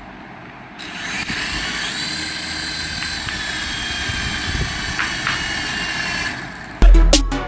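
Steady high whir and whine of a small electric motor in a radio-control toy, starting about a second in and cutting off near the end. Music with a heavy beat comes back in at the very end.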